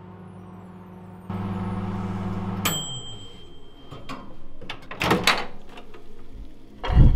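A dial-timer microwave grill oven humming as it runs, its hum winding down about two and a half seconds in as the timer bell dings once and rings away. A few seconds later the door is popped open with a clatter, and there is a heavy thump near the end.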